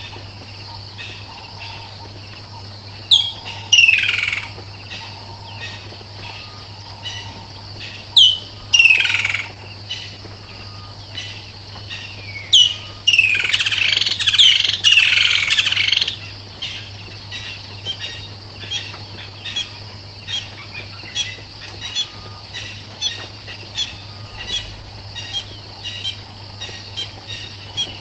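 Wild birds calling over a steady insect hiss: loud calls that fall in pitch come a few seconds in, again about eight seconds in, and then crowd together around the middle, after which short chirps repeat about once a second.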